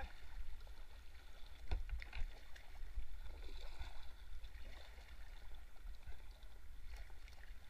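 Kayak moving down a shallow river, with water rippling and splashing around the hull and paddle. A few sharp knocks come about two seconds in, over a steady low rumble.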